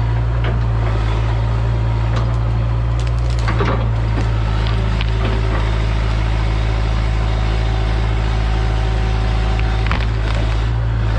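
Hitachi EX100 excavator's diesel engine running steadily under load, with a few sharp knocks and cracks now and then.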